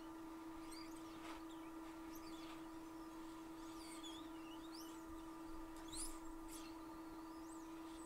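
Faint steady electrical hum, with faint short chirps sliding up and down in pitch over it, like small birds.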